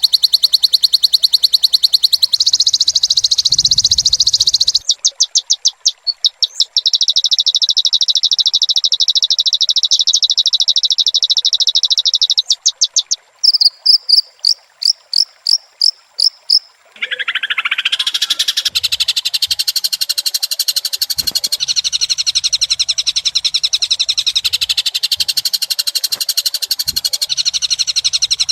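High-pitched bird and insect-like calls. Very fast buzzing trills come in long stretches broken by short pauses, then a run of separate short falling chirps. About two-thirds of the way in, a downward sweep leads into dense, busy chirping song.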